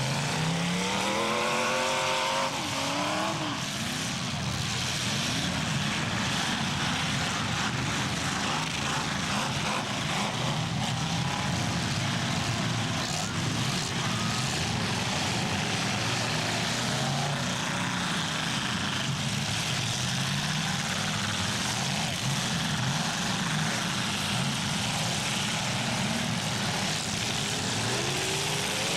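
Engines of several full-size demolition derby cars running and revving together. The pitch rises sharply in the first couple of seconds and again near the end.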